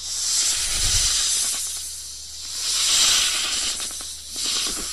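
A snake hissing in long drawn-out breaths. Two full hisses swell and fade, and a third begins near the end.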